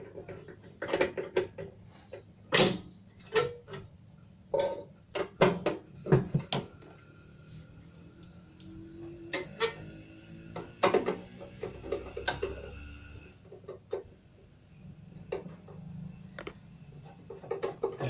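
Irregular clicks and metallic knocks of a screwdriver and metal parts being handled while a replacement magnetron is screwed back into a microwave oven's chassis.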